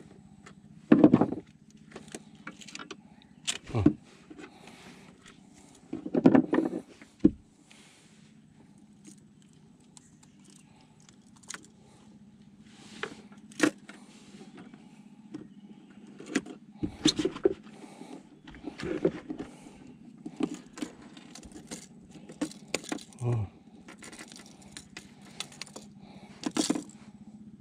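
Irregular knocks and metallic clinks of fishing tackle being handled while a barracuda is unhooked, over a steady low hum.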